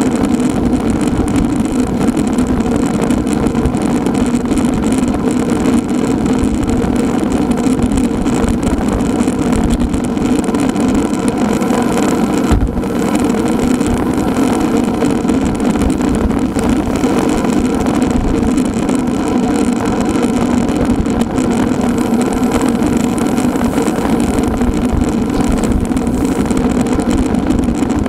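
Steady, loud drone of travel along a road: a constant hum with no breaks or changes.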